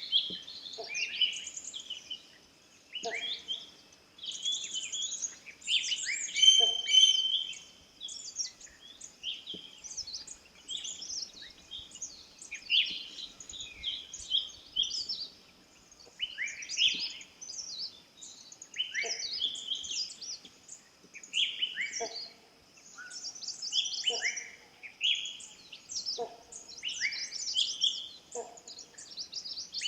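Several birds chirping and calling in a forest, with many quick high sweeping notes and a short lower call repeating every two to three seconds. A thin, steady high-pitched hum runs underneath.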